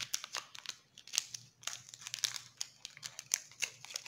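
A chocolate-bar wrapper crinkling and crackling as it is pulled open by hand: a run of irregular sharp crackles.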